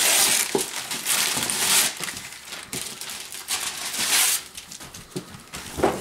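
Wrapping paper tearing and rustling as a boxed present is unwrapped, in bursts, loudest in the first two seconds and again about four seconds in.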